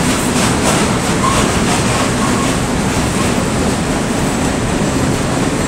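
Freight train of open-top gondola wagons rolling past at speed, its wheels running on the rails with a loud, steady rumble and rattle.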